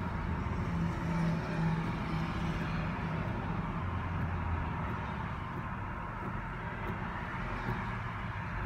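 Steady road-traffic and engine noise heard from inside a car's cabin, with low engine hums coming and going as vehicles move nearby.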